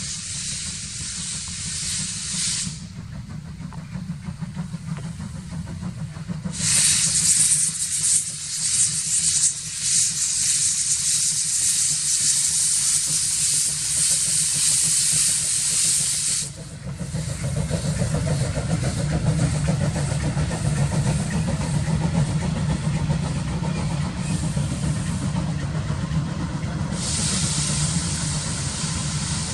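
DR class 86 steam tank locomotive pulling a passenger train away, with loud steam hissing from its open cylinder drain cocks in long spells over a steady low rumble of exhaust and running gear.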